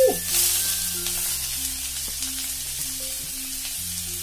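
Raw prawns dropped into hot oil in a pan, frying with a loud sizzle that is strongest at first and eases to a steady hiss.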